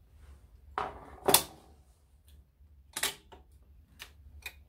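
Small metal parts of a Grundig TK-121 reel-to-reel tape recorder's deck clicking and knocking as they are handled and pried loose by hand: a run of sharp clicks, the loudest about a second in and another near three seconds.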